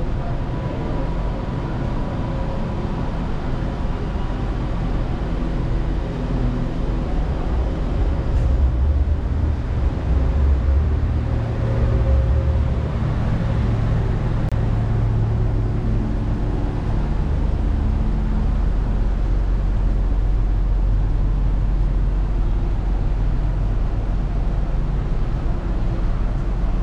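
City street traffic: a steady low rumble of passing vehicles, growing louder about a third of the way in.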